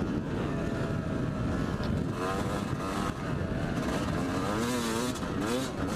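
Yamaha YZ250 two-stroke single-cylinder dirt bike engine revving up and down as it is ridden, its pitch rising and falling with the throttle. The engine drops off just after the start and picks up again about two seconds in.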